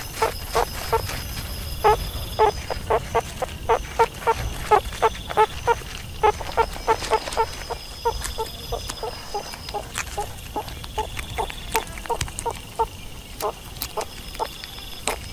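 Meerkat calling: a rapid series of short, pitched chirps, two to four a second, growing fainter about halfway through.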